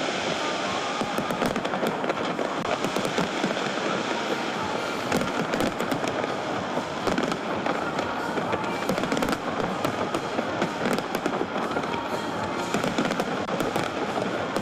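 A large fireworks display going off without a break, with dense crackling and many sharp bangs coming thick and fast.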